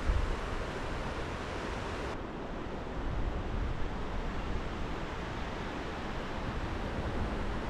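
Strong wind blowing through forest trees in a steady rushing hiss, with low rumbling buffets of wind on the microphone. The higher hiss drops away abruptly about two seconds in.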